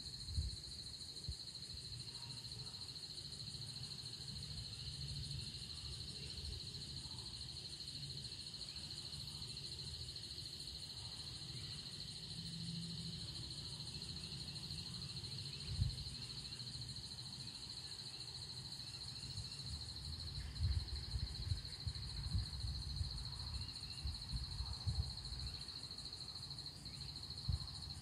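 Insects trilling steadily in a fast, high-pitched pulse, with a fainter, higher trill above it. Wind buffets the microphone in low, uneven rumbles, more often in the last several seconds.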